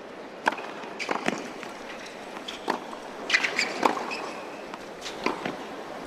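Tennis racket strikes on the ball: a serve about half a second in, then a baseline rally of sharp, evenly spaced hits, with players' shoes moving on the hard court between shots over a hushed stadium crowd.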